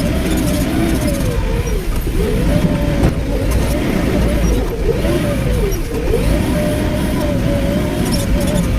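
Excavator's diesel engine running hard, its note dipping sharply and recovering several times as the hydraulics load it, over a steady low rumble.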